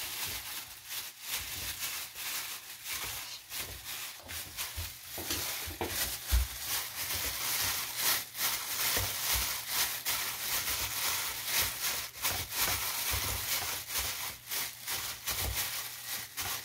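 Raw pork being massaged by hand to work in salt, pepper and garlic: a steady run of irregular rubbing and crinkly scrunching.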